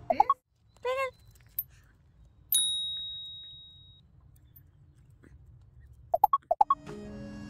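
A single bell ding sound effect about two and a half seconds in: a sharp strike with a clear high tone that rings out for about a second and a half. Short quick pitched blips come at the start and again about six seconds in, with a brief wavering pitched sound about a second in.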